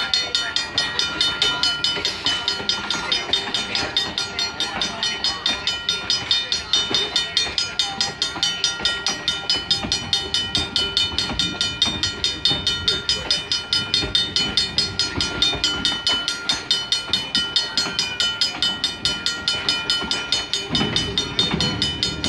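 Railroad crossing bell ringing in rapid, even strokes while the train's cars roll past the crossing. A low rumble swells near the end.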